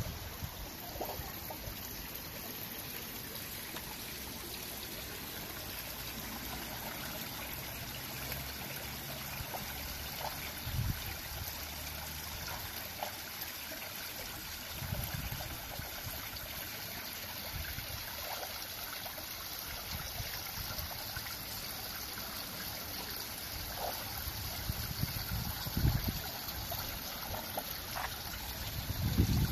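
Water trickling and flowing steadily in a small stream, with a few brief low thumps scattered through it.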